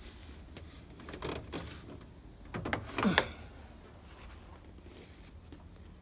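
Handling noise on a portable air conditioner's plastic casing: a few knocks and scrapes around the side grille, in two clusters about one and three seconds in, the second the louder, over a low steady rumble.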